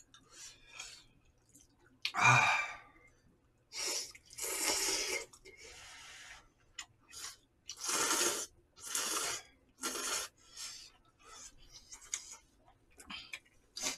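Noodles of jjamppong, spicy Korean noodle soup, being slurped from chopsticks in several long slurps, with chewing between them. There is a short loud burst of breath about two seconds in.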